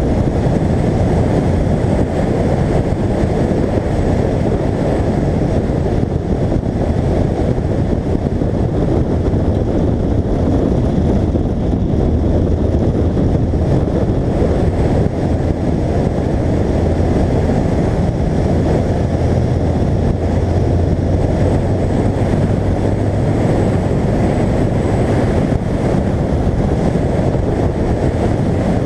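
Car lapping a race track, heard from a camera on its hood: heavy wind buffeting on the microphone mixed with engine and road noise, with a low engine note that grows stronger for a stretch in the middle.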